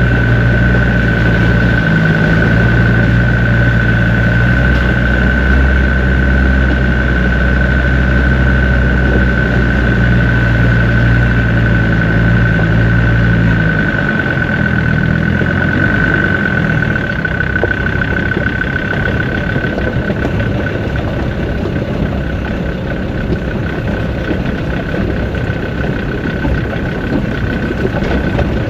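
Land Rover Discovery 2 Td5's 2.5-litre five-cylinder turbodiesel running as the vehicle drives along a rough stony track, with a steady high whine throughout. About halfway through, the deep engine note drops away and a rougher noise of tyres on loose stones and the body rattling takes over.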